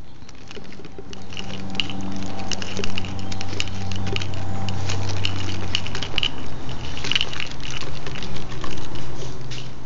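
A cello playing low, held notes that change pitch every few seconds, with quick pattering clicks and footsteps from the walking person carrying the phone over it.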